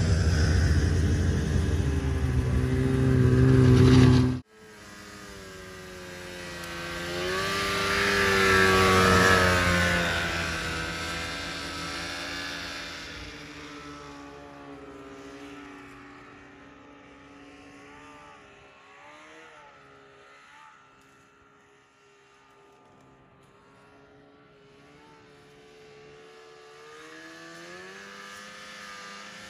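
Snowmobile engine running loud and close, breaking off abruptly about four seconds in. Then a snowmobile engine out across the snow: it rises in pitch and grows louder about eight to ten seconds in, fades into the distance, and swells slowly again near the end.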